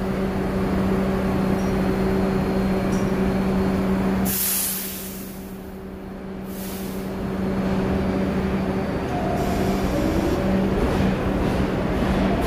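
A subway train standing in the station with a steady electrical hum. About four seconds in the hum stops, and there is a loud hiss of released air from the brakes, followed by a second shorter hiss. The hum then returns, and the doors slide shut near the end.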